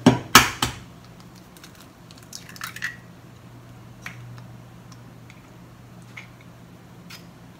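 An egg knocked sharply twice against a hard edge to crack its shell, then faint clicks and squelches as the shell is pulled apart and the egg is separated, yolk from white.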